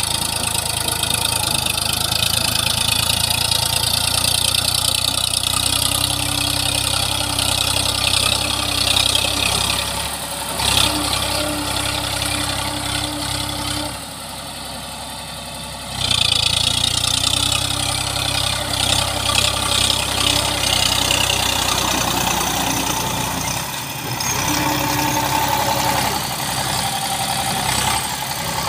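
Eicher 548 tractor's three-cylinder diesel engine running steadily as it pulls a cultivator through wet mud. The engine sound dips briefly about halfway through, then comes back.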